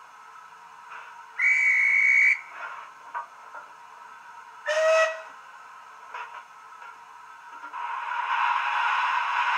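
A Jamie Goodman LokSound sound decoder in a Hornby OO gauge Britannia steam locomotive model, played through a small tablet speaker: a long steady whistle of about a second, then a shorter, lower whistle blast about five seconds in. From about eight seconds a steady steam hiss starts and grows louder.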